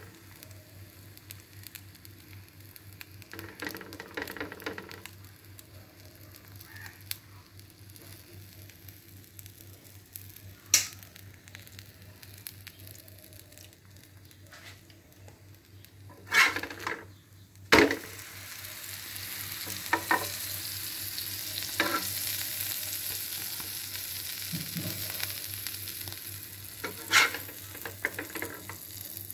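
Sandwich sizzling in butter on a hot flat griddle pan (tawa), with a few sharp knocks of a spatula against the pan. The sizzle grows louder and stays steady from a little past halfway, once the buttered side has been turned down onto the pan.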